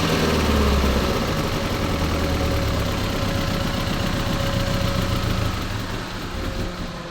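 Mazda Demio car engine running at idle, with a dense, rapid pulsing, on a car that is hard to start. It gets quieter near the end.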